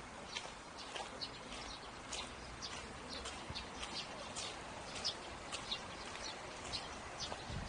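Footsteps of a person walking, short sharp steps at about two a second, over a steady outdoor background hiss.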